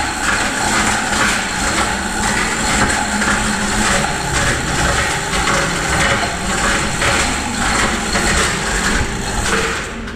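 Manual chain hoist being hauled hand over hand: the steel hand chain rattles and clatters through the hoist as it lifts a heavy welded steel part. The rattling stops near the end.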